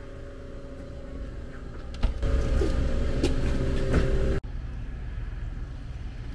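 Street traffic: a low rumble of a car going by that grows louder about two seconds in, then cuts off abruptly and gives way to quieter, steady outdoor background noise.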